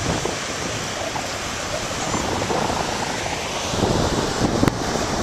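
Surf washing onto a beach, mixed with wind buffeting the microphone as a steady rushing noise. A few sharp clicks near the end.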